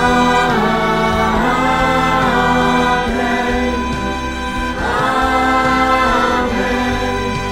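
A mixed choir of adult and children's voices singing a worship song in long held phrases over a steady, low-pitched accompaniment.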